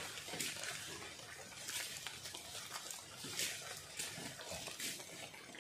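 Rustling and brushing of leaves and undergrowth in short, irregular bursts about once a second, as a person moves through brush and handles a long wooden pole.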